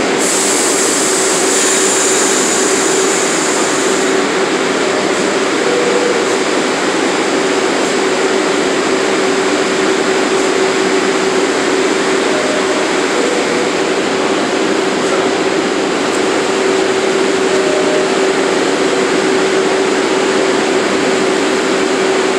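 Subway train standing at the platform with its doors open: a steady hum with one constant tone over an even rush of equipment and ventilation noise. A high hiss stops about four seconds in.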